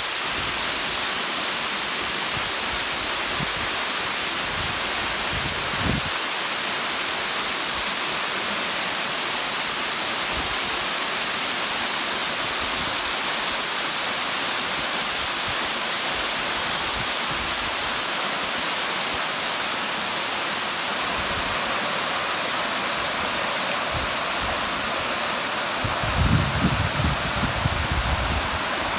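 Waterfall cascading over a steep rock face: a steady, unbroken rush of falling water. Near the end, low rumbling bumps on the microphone join it.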